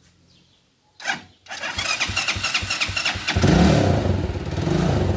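Quad bike (ATV) engine being started: the starter cranks it unevenly for a couple of seconds, then it catches about three and a half seconds in and runs loud.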